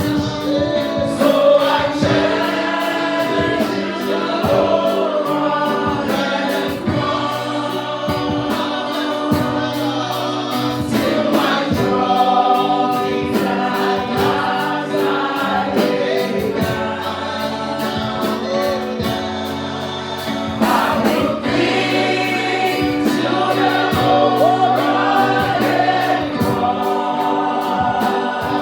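Choir singing a gospel worship song with instrumental accompaniment and a steady beat.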